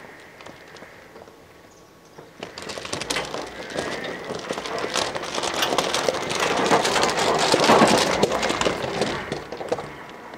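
Tyres of a Greenworks Pro 60V electric zero-turn riding mower crunching over gravel, growing louder from about two seconds in as it drives up close, then dying away as it stops near the end.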